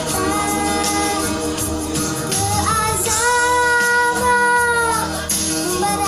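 A song with a young female voice singing over percussion; one long held note starts about halfway in and ends shortly before the end.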